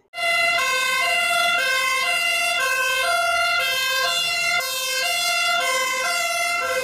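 A German fire brigade vehicle's two-tone siren, alternating steadily between a low and a high note about every half second, over a faint low truck engine rumble.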